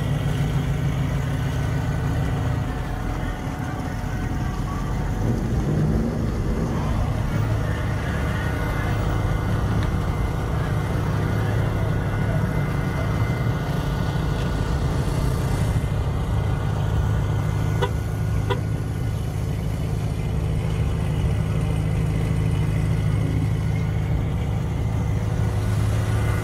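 Car engine running steadily, with a low, even sound.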